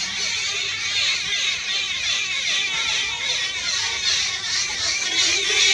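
A dense chorus of many small birds chirping and chattering at once, high-pitched and continuous.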